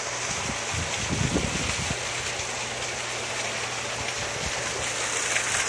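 Steady rush of water spilling from wall spouts into a rooftop plunge pool, with low wind gusts buffeting the microphone.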